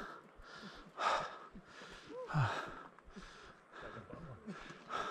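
A person breathing hard, out of breath from the climb, with about two puffs a second. There is a louder short vocal sound with falling pitch about two and a half seconds in.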